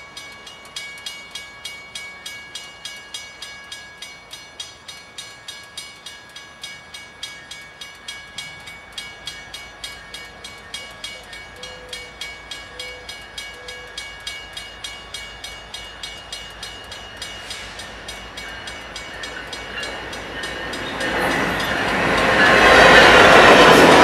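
Railroad grade crossing bell ringing steadily at about two strokes a second while a Union Pacific passenger train approaches. The train grows loud over the last few seconds as its passenger cars pass close by.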